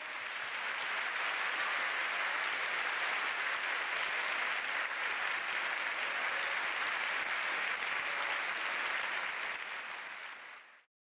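Crowd applauding steadily, fading in at the start and fading out just before the end.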